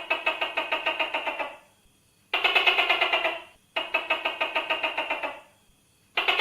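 Tokay gecko calling in four bursts of rapid, even rattling pulses, about ten to the second. Each burst lasts a second or more, with short gaps between.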